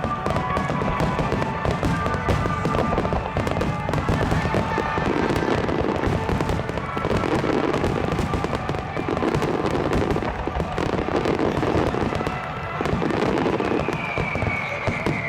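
Fireworks bursting in a dense, continuous barrage, a steady mass of cracks and bangs with crackling, over background music. A falling whistle-like tone comes in near the end.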